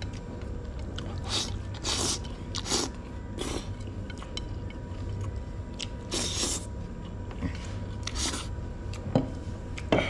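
A person eating noodles with chopsticks: repeated short slurps and chewing, mouth at the plate, with a sharp click about nine seconds in.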